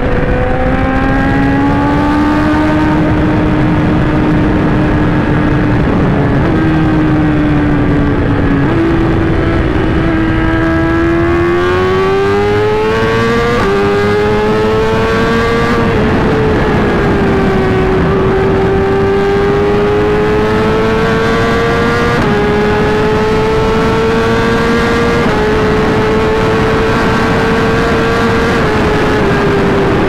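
Inline-four sportbike engine running at high revs at highway speed, its note climbing and falling with the throttle and jumping up in pitch several times, over heavy wind and road rush.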